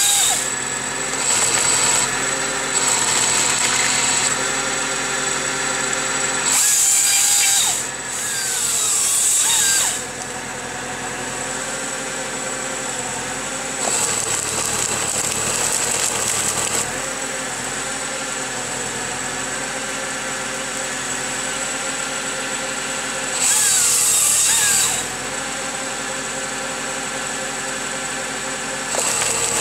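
Hydraulic chain saw of a Farmi 35 energy-wood felling grapple cutting through tree stems in about seven loud bursts of one to three seconds, some ending with the saw's pitch falling as it spins down. Under them a tractor engine runs steadily, driving the crane's hydraulics.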